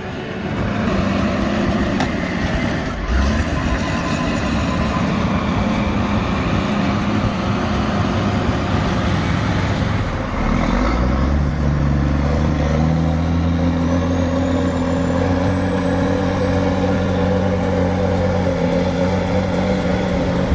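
Heavy diesel engine of a logging truck or dozer working hard under load. About halfway through its note dips, then climbs slowly and holds at higher revs.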